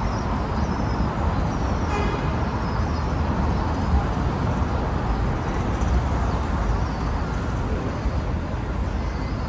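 Steady city traffic noise, a constant low rumble and hiss with no break.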